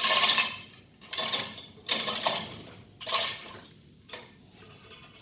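Metal hand tools scraping and clinking on the metal parts of an alternator being taken apart: four strong bursts about a second apart, then a few fainter clicks.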